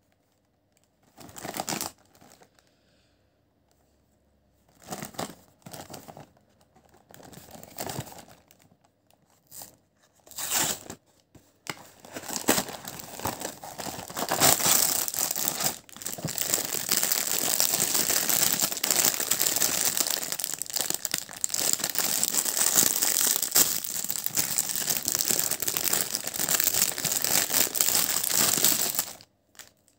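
Packaging being opened: a few short rustles and tears of a cardboard biscuit box, then a long stretch of crinkling and rustling of the box's clear plastic inner wrapper, which stops shortly before the end.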